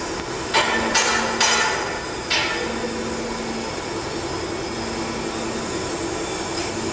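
Factory machinery running with a steady hum, and a low tone that switches on and off about every two seconds. Four sharp metal knocks with a short ring come in the first two and a half seconds.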